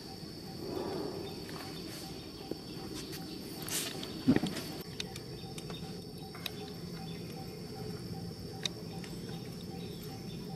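Steady high-pitched drone of insects in the background, with one brief loud sound about four seconds in.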